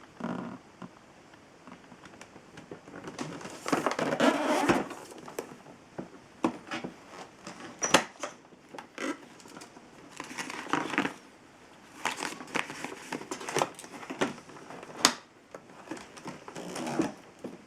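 Irregular clicks, knocks and rustling of objects being handled, with no motor running.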